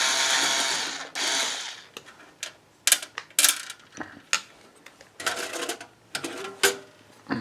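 A small power tool, such as a cordless drill driving screws, whirs and stops about a second in, then runs again briefly. After that come scattered sharp clicks and knocks of hardware being handled.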